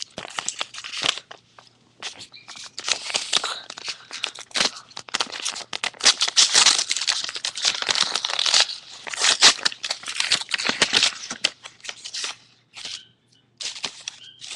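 Paper envelope being opened by hand: irregular rustling and tearing of paper, busiest in the middle with short pauses.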